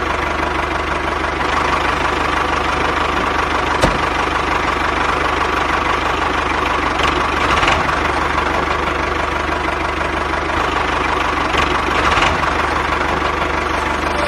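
Tractor engine running steadily at a knocking, diesel-like idle, holding an even pitch without revving.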